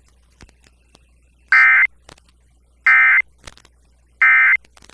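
Emergency Alert System end-of-message signal: three short bursts of SAME digital data tone, about a second apart, marking the end of the severe thunderstorm warning broadcast.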